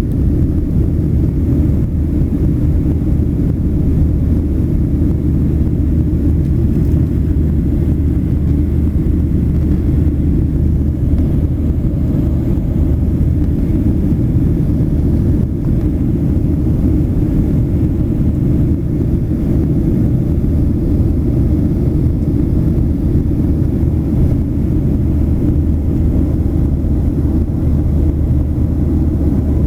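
Airplane cabin noise in flight: the steady low rumble of the engines and the air rushing past the fuselage, heard from inside the cabin.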